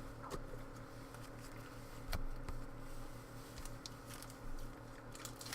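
Faint clicks and light rustling of trading cards being handled and shuffled, over a steady low electrical hum.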